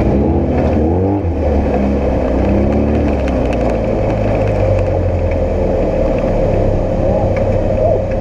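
Off-road race vehicle's engine revving up and down several times in the first three seconds, then holding a steady drone over a low rumble.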